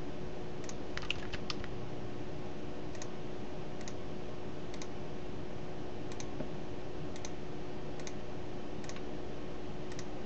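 Scattered clicks of a computer mouse and keyboard, about one a second with a quick run of several about a second in, over a steady low hum.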